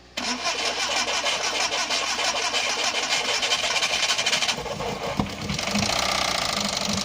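A VW Golf IV's 1.6 AKL four-cylinder petrol engine is started; it comes in abruptly just after the start and settles to a steadier running sound about two-thirds of the way through, with a rapid repeating knock. The owner takes the knock, which appeared at start-up, for a spun connecting-rod bearing.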